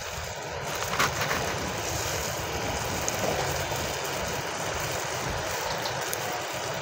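Tomato masala sizzling in a metal kadai over a wood fire on a mud stove: a steady hiss with a low rumble underneath and a light knock about a second in.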